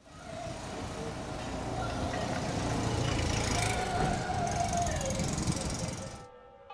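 Street ambience of car traffic, a steady rush that fades out about six seconds in. Just before the end a church bell starts ringing.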